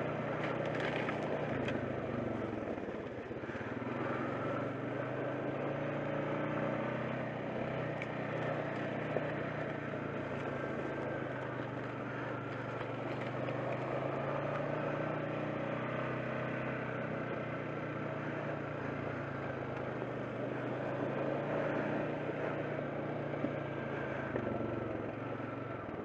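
ATV engine running steadily while riding a trail, its pitch wavering slightly with the throttle.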